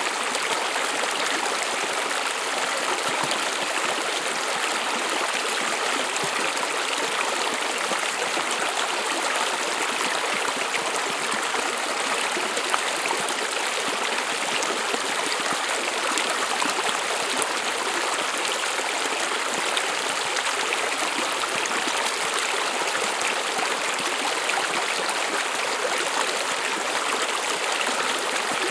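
Small stream flowing over stones, a steady, even rush of running water.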